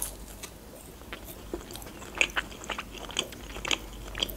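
Biting into a breaded fried chicken cutlet and chewing it. There is a crunch at the bite, then chewing, with a run of crisp crunches in the second half.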